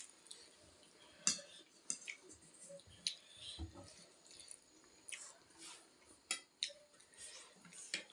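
Ramen being eaten: utensils clicking against dishes in a scatter of sharp, short clicks, with soft eating sounds between them.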